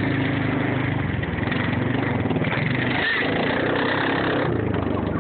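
Engine of a 4x4 running steadily at low speed while towing a snow tube, with a steady hiss over it that drops away near the end.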